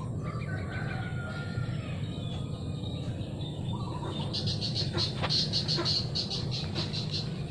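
A rooster crowing, one long wavering call in the first couple of seconds, followed about four seconds in by a run of quick high chirps, about five a second, from a small bird.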